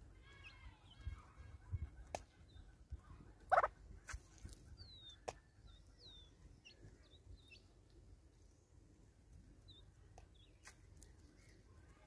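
Birds feeding on a seed-strewn tree stump: soft, fowl-like clucking notes near the start and a few sharp pecking taps, the loudest about three and a half seconds in. A few thin, high, downslurred chirps from other birds sound in the background.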